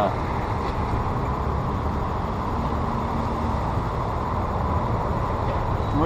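Steady low rumble of street traffic.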